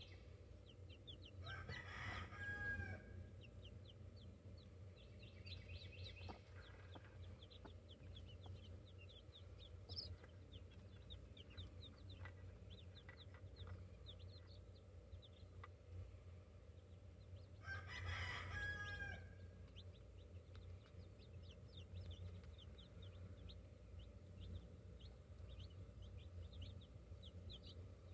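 Chicks peeping, a steady stream of short, high, falling cheeps. A rooster crows twice, about two seconds in and again around eighteen seconds, the loudest sounds here, over a low steady background hum.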